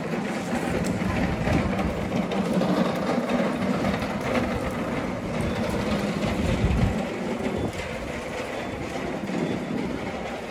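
Wet pedestrian street in the rain: a steady wash of street noise with a rolling, rattling rumble that swells about two-thirds of the way in.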